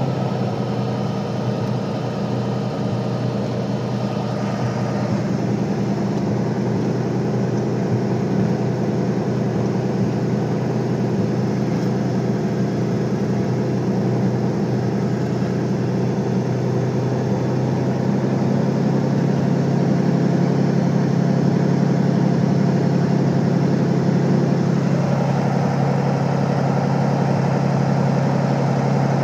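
Cirrus SR22's six-cylinder Continental piston engine and propeller running at low taxi power, heard from inside the cockpit as a steady drone. It gets a little louder partway through.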